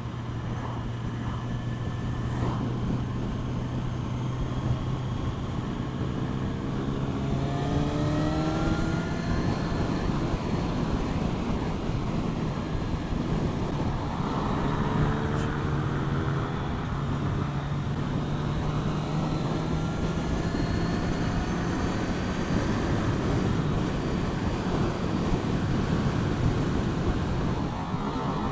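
Motorcycle engine running at road speed under heavy wind and road noise, its pitch rising twice as it accelerates, about a quarter and about half way through.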